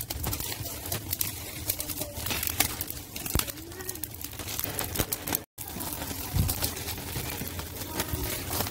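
Wood fire crackling with many small clicks under an iron saç griddle, over a low rumble, while doves coo in the background. The sound cuts out for a moment a little over halfway.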